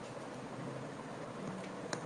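Quiet room tone: a steady low hiss, with one faint click near the end.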